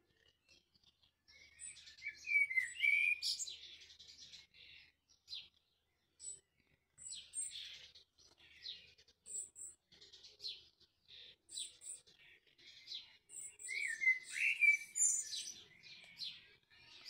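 A small songbird singing: short chirps and trills throughout, with two louder warbling phrases, one about two seconds in and another near the end.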